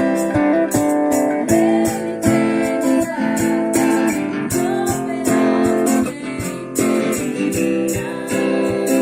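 Guitar strummed in a steady rhythm, playing a worship song.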